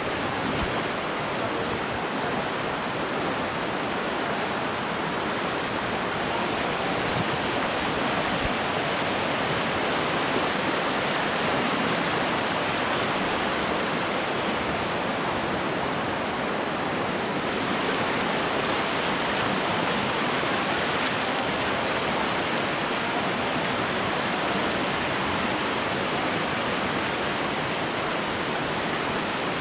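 Shallow, fast river rushing over a stony bed close by: a steady rush of water that does not change through the whole stretch.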